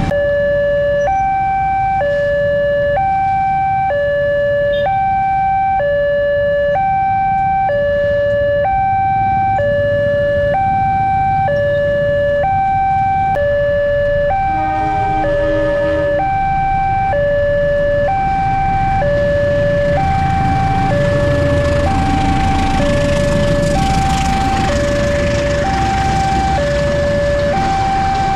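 Railway level-crossing electronic alarm sounding its warning of an approaching train: a high note and a low note taking turns, each about a second long. Midway, another alarm with lower notes briefly overlaps. Underneath is a rumble of idling motorbikes, which swells near the end as a passenger train runs past.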